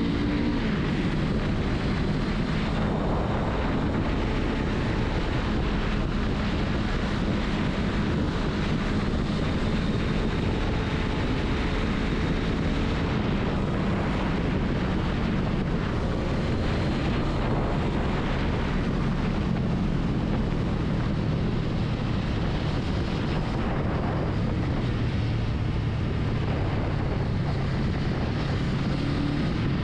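Honda Rebel 500's parallel-twin engine running steadily while the motorcycle is ridden, with wind rushing over the microphone.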